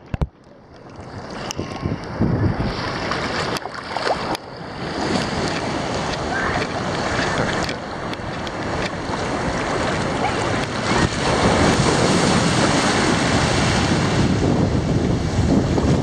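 Ocean surf rushing and breaking around a camera held at the waterline, with wind on the microphone. The sound starts muffled as the waterproof camera comes up out of the water, builds over the first couple of seconds, and grows louder from about eleven seconds in.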